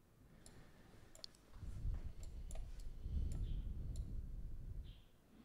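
Computer mouse clicks, about a dozen sharp, light ones scattered through, with a low rumble underneath from about a second and a half in until near the end.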